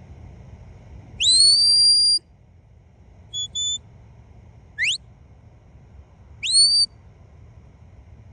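Four high, clear whistles: a long one that rises and then holds steady, two short notes, a quick upward slide, and another one that rises and holds.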